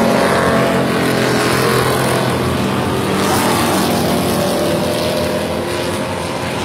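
Engines of a pack of dirt-track stock cars racing around the oval, several running hard at once and overlapping, with the nearest cars passing close at the start.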